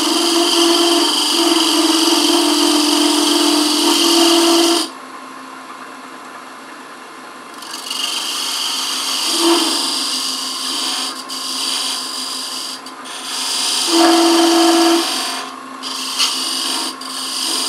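Parting tool cutting into a spinning wooden box blank on a wood lathe to form a tenon: a loud, steady scraping cut for about five seconds, then the tool lifts off and returns for several shorter cuts with brief gaps. The lathe's steady hum runs underneath.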